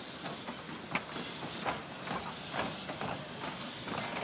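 Wheels of passenger carriages rolling past on jointed track, knocking over the rail joints in a repeated clickety-clack.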